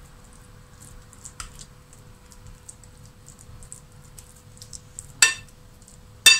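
Metal spoon stirring and mashing soft curd cheese in a porcelain bowl: light scraping and small ticks of the spoon against the bowl, with two sharper clinks about five and six seconds in.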